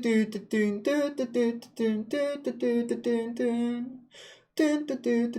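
A voice singing a melody in short held notes that step up and down, with no clear accompaniment, pausing briefly about four seconds in.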